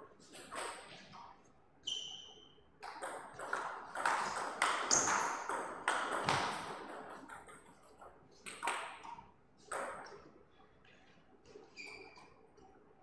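Table tennis rallies: the celluloid-type plastic ball clicks sharply off the rubber bats and bounces on the table in quick exchanges, two bursts of play with pauses between points. A couple of short high squeaks come between the rallies.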